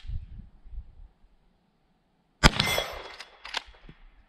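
A Whitney Kennedy lever-action rifle fires one shot about two and a half seconds in, with a ringing tail, followed by a couple of short metallic clicks as the lever is worked. A single sharp click comes right at the start.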